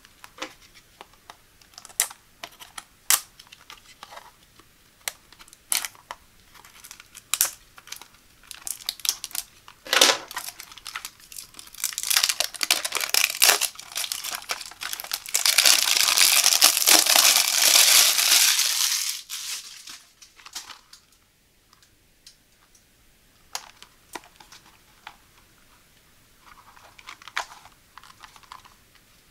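Clear plastic shrink wrap being picked at and torn off a cardboard box: scattered sharp crackles and clicks, then several seconds of loud, continuous crinkling as the wrap is pulled away, then only a few faint clicks near the end.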